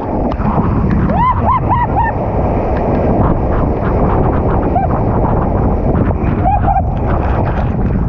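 Loud, unbroken rushing of breaking whitewater, with wind and water buffeting a camera riding the wave at water level. A few short high cries are heard about a second in.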